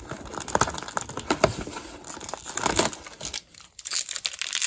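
Cardboard tear-strip door on a toy blind box being pulled open: crinkling and tearing of card and paper. It pauses briefly about three and a half seconds in, then the crinkling starts again.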